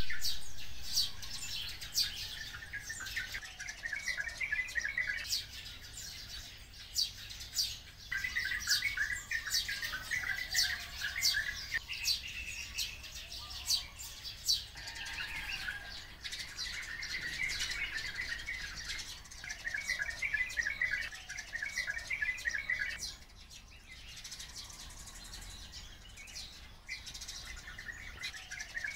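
Oriental white-eyes and sparrows calling together: bursts of fast chattering trills lasting a second or two, over a steady scatter of short, sharp high chips. The calling eases for a few seconds a little past the middle, then picks up again near the end.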